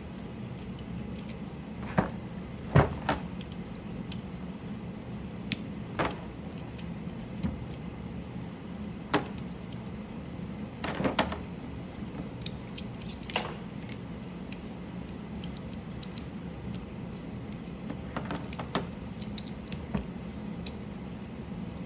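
Mechanical keyboard parts being worked on by hand: irregular sharp plastic clicks and snaps as keycaps and switches are handled, pulled and pressed into place, over a steady low hum.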